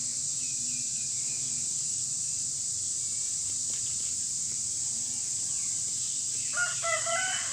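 Insects shrilling steadily in a high, unbroken drone, with faint bird chirps. A brief high-pitched call comes in near the end.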